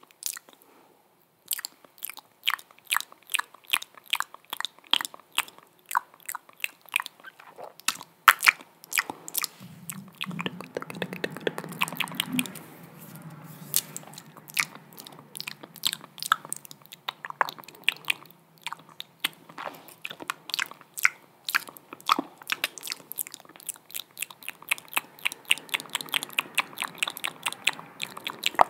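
ASMR mouth sounds close to the microphone: quick wet clicks and smacks of lips and tongue, several a second and irregular, with a low steady sound underneath for a few seconds about a third of the way in.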